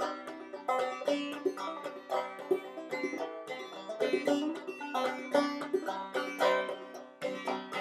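Solo banjo played clawhammer style, a quick, even run of plucked notes and brushed strums with ringing strings, an instrumental break of an old-time tune.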